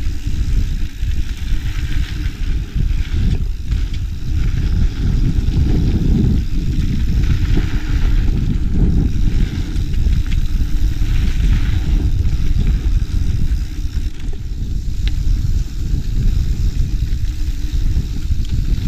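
Mountain bike ridden along a dirt singletrack, heard from a GoPro on the rider: a steady low rumble of wind and rolling tyres, with scattered small rattles and clicks from the bike.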